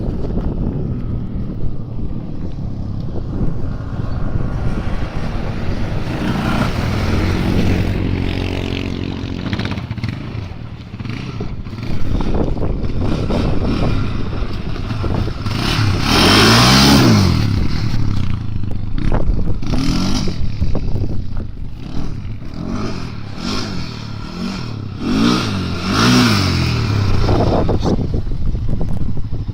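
ATV engine running under way, its revs rising and falling several times as it accelerates and eases off, with clattering and scraping from the machine over rough ground.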